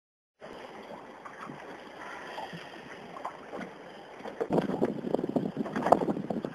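Scattered knocks and clatters over a steady hiss like wind on the microphone, busier and louder from about four and a half seconds in.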